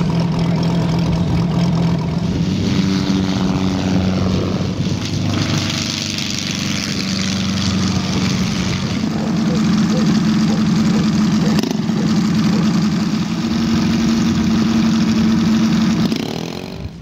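Petrol engines of giant-scale radio-controlled model aircraft running with propellers turning: a steady engine tone that shifts in pitch a few times, including one model in a low pass over the grass.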